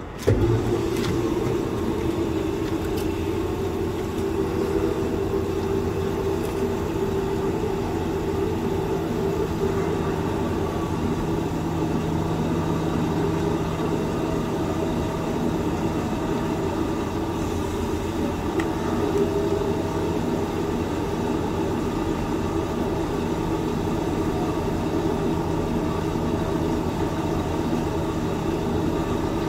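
Motor vehicle engine running at a constant speed: a steady, unchanging low hum.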